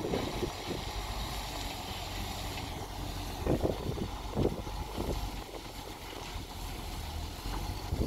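Diesel engine of heavy road-building machinery running steadily, with wind buffeting the microphone in gusts, the strongest about midway through.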